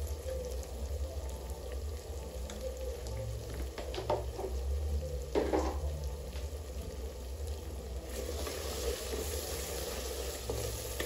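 Food sizzling in a frying pan on the stove, with a couple of short clatters of stirring about four and five and a half seconds in. The sizzle grows louder and brighter about eight seconds in.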